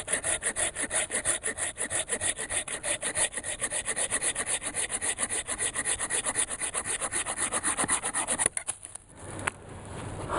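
Coghlan's 180 Sierra folding pruning saw cutting through a log about 2 inches thick with rapid, even back-and-forth strokes. Its teeth are made to cut on the pull stroke. The sawing stops about eight and a half seconds in, when the cut goes through.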